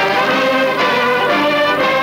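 Brass music with several instruments holding sustained chords.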